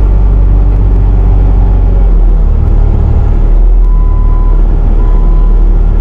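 Bobcat T650 compact track loader's diesel engine running steadily at close range; its note shifts a little over two seconds in, then settles again.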